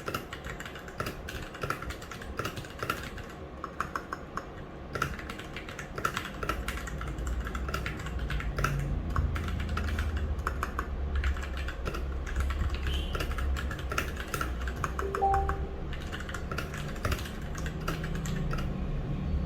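Typing on a Royal Kludge RK61 mechanical keyboard: a quick, irregular run of key clicks.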